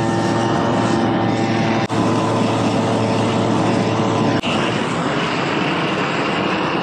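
Propane roofing torch burning with a loud, steady rushing flame noise, played over the wet torch-down roof membrane to dry it before repair. The noise dips for an instant twice, about two seconds in and again at four and a half.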